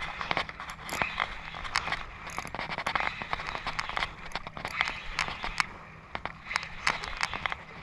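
Spinning reel being cranked against a hooked fish, taken for a kingfish: irregular clicking and short whirring runs from the reel, over a low steady rumble.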